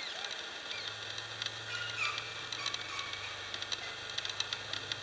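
Quiet outdoor ambience: scattered faint ticks and short chirps, with a low steady hum coming in about a second in.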